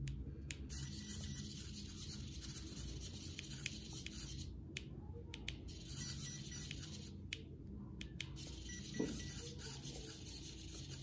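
Brushed electric drive of a Traxxas TRX4 crawler under a new Hobbywing ESC, running in three bursts of high hiss and whine. Each burst starts and stops with a sharp click as the throttle is worked during setup.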